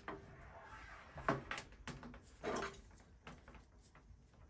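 Handling noise of a plastic power supply mount and power supply being picked up and moved about: a handful of faint light knocks and rubs, the most distinct about halfway through.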